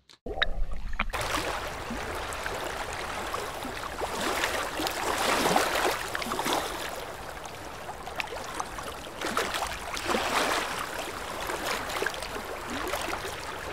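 Open water sloshing and lapping around a camera held at the waterline, swelling and easing every few seconds as small waves pass.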